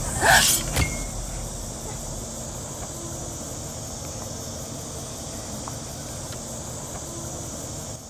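Forest ambience: a steady high insect drone, with one crow caw just after the start.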